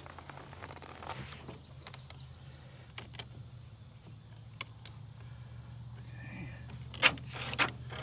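Getting out of a pickup truck: scattered clicks and knocks of handling the door and camera over a steady low hum, then two sharp knocks near the end as the truck door is shut.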